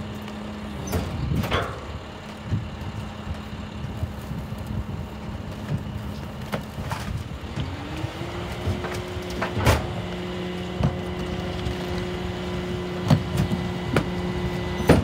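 Loadmaster rear-loader garbage truck running at idle, its engine speeding up about halfway through and holding the higher speed. Sharp knocks and bangs as bags and a cart are tipped into the rear hopper.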